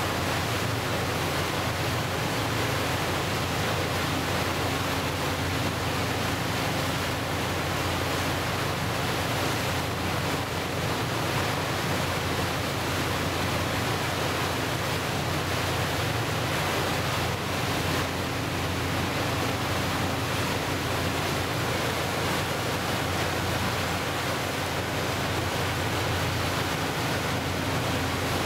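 Steady rush of wind and water from a passenger boat moving through choppy water, with a low, steady engine hum underneath.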